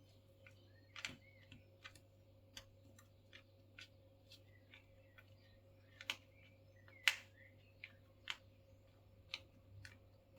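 Cardboard jigsaw puzzle pieces clicking and tapping irregularly as they are picked up and tried in place, about fifteen light clicks with the loudest about two-thirds of the way through.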